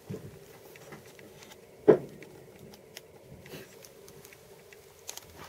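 Scattered light clicks and knocks of drum kit hardware being handled, with one louder dull knock about two seconds in.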